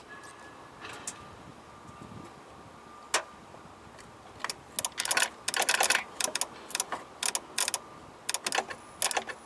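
Irregular bursts of sharp metallic clicks and scraping from booster pack clamps being worked on the battery terminals, clustered in the second half.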